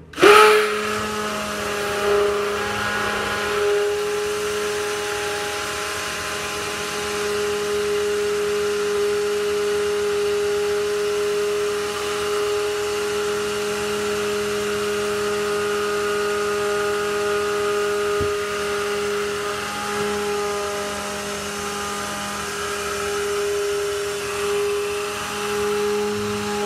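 Electric stick (immersion) blender switched on with a sudden start and running steadily, its motor giving a constant pitched hum as it blends lye into coconut oil soap batter, the mixing stage that brings the soap toward trace.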